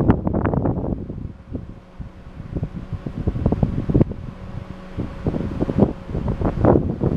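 Gusty wind buffeting the microphone, strongest at the start and again near the end, over a faint steady hum.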